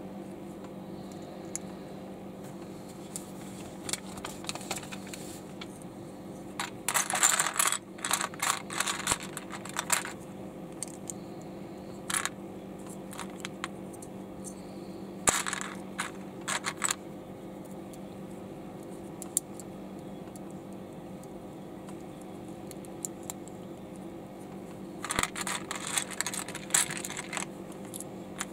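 LEGO plastic bricks clicking and clattering as they are handled, picked from a loose pile and pressed together, in several short flurries with quieter gaps between. A steady low hum runs underneath.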